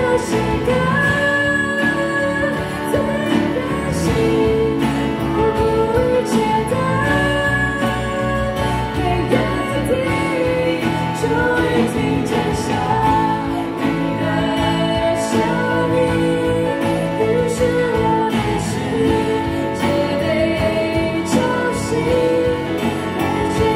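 A female singer sings a Mandarin pop song live into a microphone, with acoustic guitar accompaniment through the PA.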